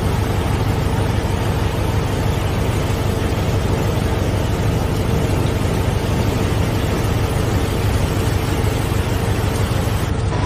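Floodwater rushing down a street: a deep, steady roar of fast, heavy flow that does not let up.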